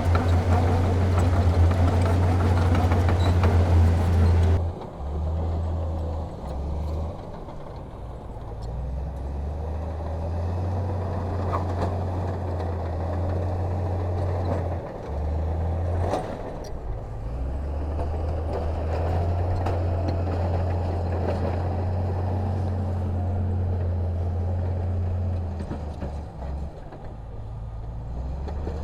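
Heavy diesel engine of earthmoving machinery running with a low drone that rises and falls with load and drops out briefly several times. A louder, fuller sound over the engine during the first few seconds cuts off suddenly about four and a half seconds in.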